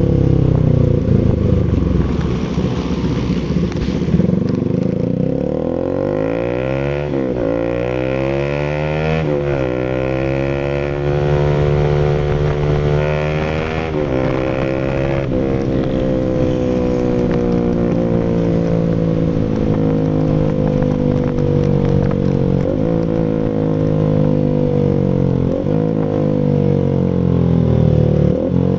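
Rouser RS200's single-cylinder engine running through an SC Project full exhaust. The engine note climbs and drops sharply three times in the first half, then holds fairly steady, sagging slowly before rising again near the end.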